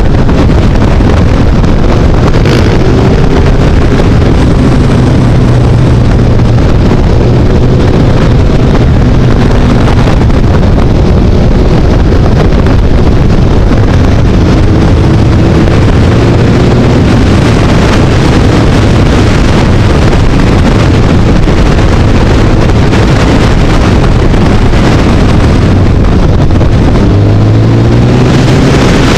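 Loud wind buffeting on the microphone over a motorcycle engine running at road speed, its note rising and falling several times with the throttle, climbing once more near the end.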